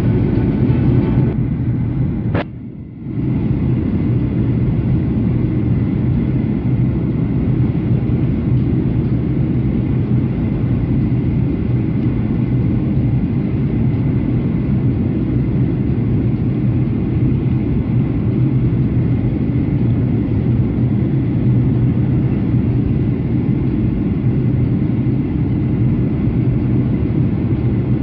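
Steady cabin drone of a Boeing 737-800 in cruise, heard from inside the cabin: the hum of its CFM56 turbofans and the rush of air, strongest in the low range. A sharp click and a brief dip in the noise come about two and a half seconds in.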